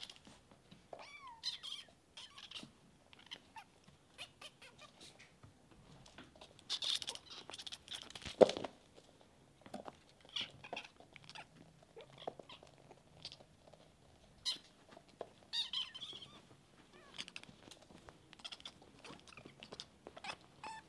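Bengal kittens meowing over and over in short, high calls, some sliding in pitch, with gaps between them. A sharp knock about eight seconds in is the loudest sound.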